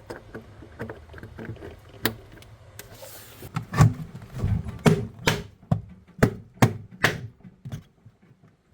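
A series of irregular sharp knocks and clicks, scattered at first and coming several a second from about four to seven and a half seconds in, then stopping.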